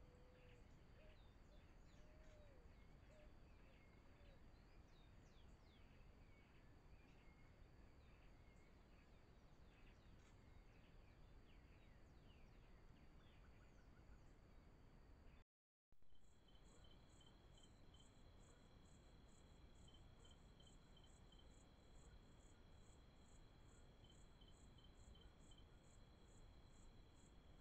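Faint outdoor ambience over a low hiss: scattered high bird chirps for the first half. After a brief dropout, night insects take over, a steady high trill with a regular pulsing chirp about two or three times a second and short runs of quicker notes.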